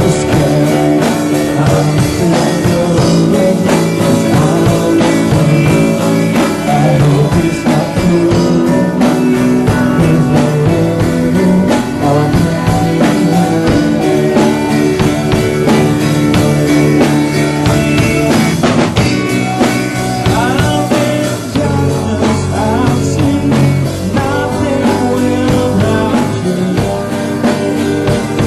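Rock band playing live, with electric guitar and a drum kit, and a voice singing at times.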